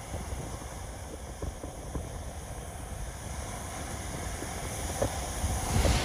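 Wind rumbling on the microphone over the wash of ocean surf on a sandy beach; the hiss of a wave running up the sand swells near the end.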